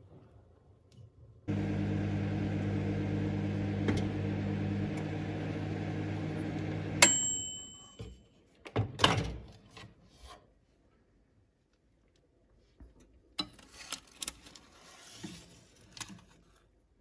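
Microwave oven running with a steady hum that starts suddenly, then stops with a sharp click and a short beep as the hum dies away. A few clicks and knocks follow.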